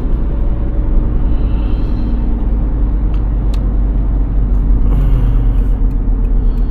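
Steady low engine and road rumble of a car being driven, heard from inside the cabin.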